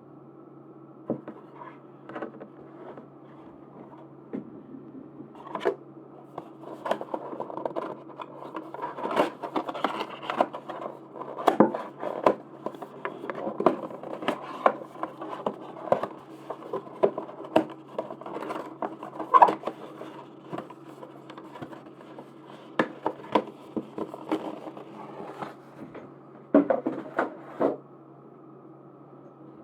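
Merchandise packaging being handled and opened by hand: irregular crinkles, rustles and sharp clicks, busiest in the middle and with a last flurry near the end. A steady low hum runs underneath.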